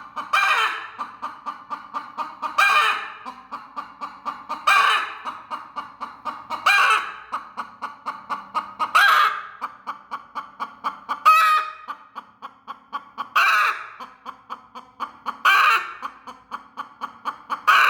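Broody hen's defensive calls: a loud harsh squawk about every two seconds, with rapid clucking pulses between them. These are the warning noises of a hen guarding her eggs.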